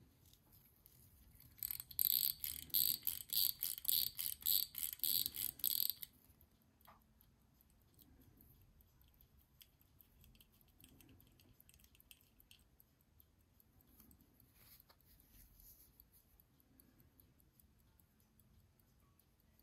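Crown of a c.1895 Patek Philippe pocket-watch movement, cased as a 49 mm wristwatch, being wound: a quick run of loud ratchet clicks, about three or four a second, for some four seconds near the start. After that, the movement ticks faintly.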